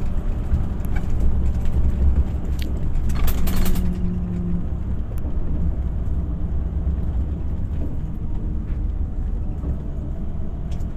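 Steady low rumble of a motor vehicle running, with a few faint clicks.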